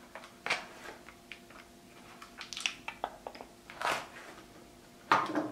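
Utility knife slitting the seal of a small cardboard box: several short scratchy cutting strokes, about a second apart, with cardboard handling between them.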